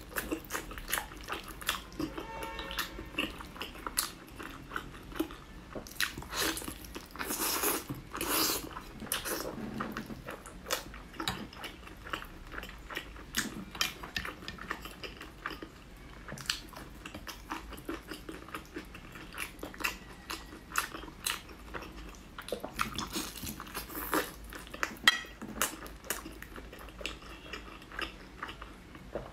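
Close-miked mouth sounds of a person eating braised pork: wet chewing with many short lip smacks throughout, and a longer wet stretch about a third of the way in.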